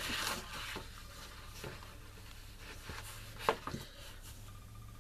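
Sheet of cardstock sliding and rustling as it is repositioned on a plastic punch board, followed by a few light taps and clicks. The sharpest click comes about three and a half seconds in.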